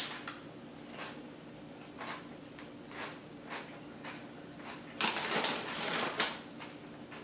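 Crunching of a tortilla chip being chewed, a soft crunch every half second or so. About five seconds in comes a louder crackling rustle of handling that lasts about a second.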